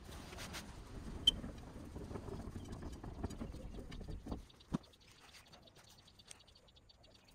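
Paper being handled on the bed of an etching press: rustling and light irregular taps, with a sharp click about a second in and a single knock near the five-second mark. It then goes quieter, with faint ticking.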